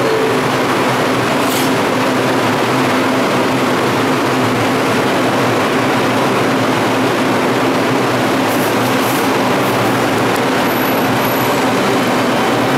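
Bombardier R142 subway train rolling past the platform as it pulls out of the station: a loud, steady rumble of wheels on rail with a low motor hum, and a few brief high clicks.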